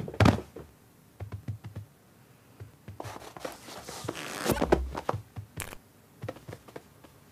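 A cat's claws scratching and scrabbling on sofa fabric, as a cartoon sound effect. Scattered light taps come first, then a rasping scratch of about two seconds, starting some three seconds in, then a few more taps.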